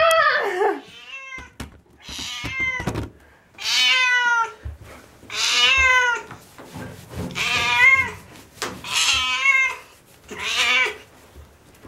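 Domestic cat meowing over and over: drawn-out calls roughly every one and a half seconds, with a few soft knocks between the first calls.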